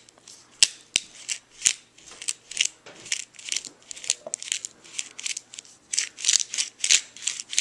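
Hand pepper grinder grinding black peppercorns: a run of short, crunching clicks, about three a second, a little louder and quicker near the end.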